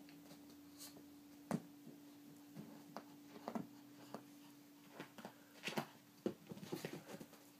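Faint, scattered rustles and light knocks of a Pomeranian pawing and chewing at a purse, with a denser run of them near the end.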